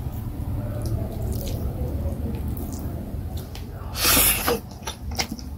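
Soft wet squishing of fufu dough being pinched and worked by hand in vegetable soup, then a short loud slurp about four seconds in as the morsel goes into the mouth, followed by a few wet mouth clicks.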